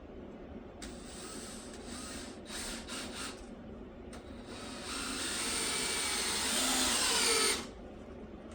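Power drill driving a screw: a few short bursts, then one longer run of about three seconds whose pitch sinks slightly as the screw drives home, stopping abruptly.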